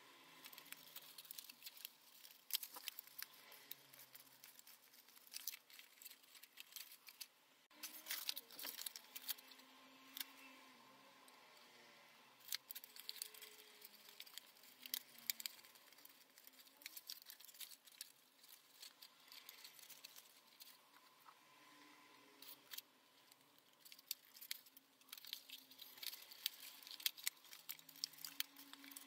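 Faint rustling and crackling of copy paper as hands bend a long tabbed paper strip and press it onto a papercraft skull, with many small irregular clicks and crinkles.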